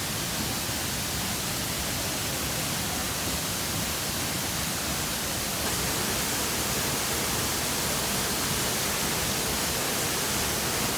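Waterfall rushing: a steady roar of falling water, a little louder about six seconds in.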